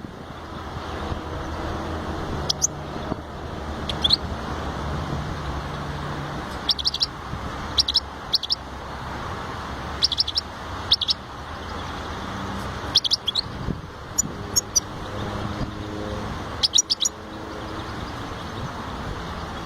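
European goldfinch calling in short clusters of two to four quick, high chirps, repeated every second or two, over a steady low hum.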